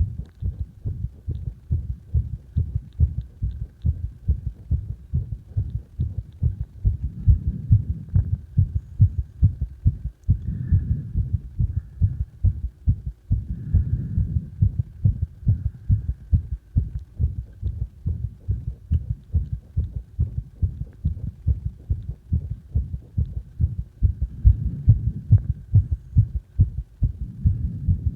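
A person's heartbeat: a fast, steady run of low thumps, swelling and easing in loudness a few times.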